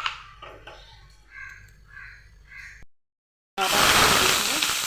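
A crow caws about four times in the background. After a brief gap, food starts sizzling loudly in hot mustard oil in a frying pan, and the sizzle is the loudest sound.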